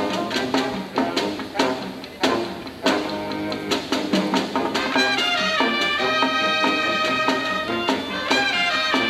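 Youth marching band playing: trumpets, saxophones and sousaphones over evenly spaced drum hits, then from about five seconds in the brass holds long sustained chords.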